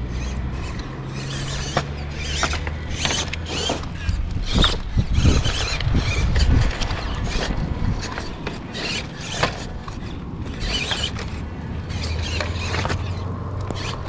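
Small 1/12-scale MN96 RC crawler driving over loose rocks: a steady hum from its little electric motor and gearbox, with many clicks and crunches from the tyres and chassis on stone, loudest around the middle.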